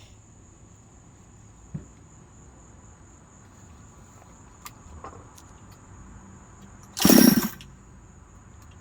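A Husqvarna 372XP two-stroke chainsaw's recoil starter is pulled once, about seven seconds in: a half-second burst of the engine turning over without catching. A few faint knocks come before it, over a steady high insect chirr.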